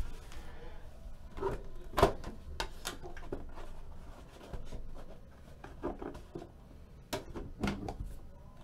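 Metal trading-card tin being opened by hand: the lid lifted off with a sharp clack about two seconds in, then scattered clicks and rubbing as the cardboard inner box is slid out.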